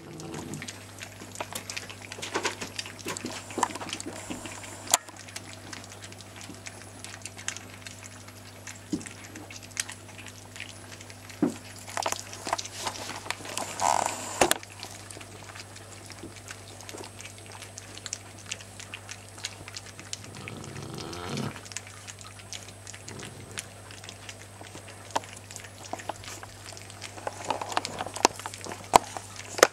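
Cavalier King Charles Spaniel puppies eating from a shared food bowl: irregular small clicks and chewing noises at the bowl, over a steady low hum.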